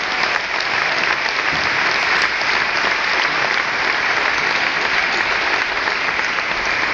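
Large theatre audience applauding steadily and loudly.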